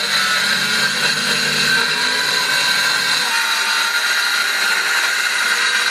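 Cordless circular saw running steadily through a wooden door panel, trimming about half an inch off its bottom edge: a continuous high motor whine over the noise of the blade cutting wood. The lower part of the sound drops away about three seconds in while the cut carries on.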